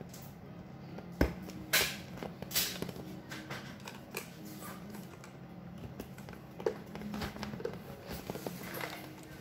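Thin vinyl of a partly inflated paddling pool handled and pressed by hand: scattered crinkles and taps, the three loudest within the first three seconds, over a faint steady hum.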